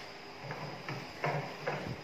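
A hollow plastic toy airplane knocking and rattling on a tiled floor as a monkey pushes and handles it: several short, uneven knocks.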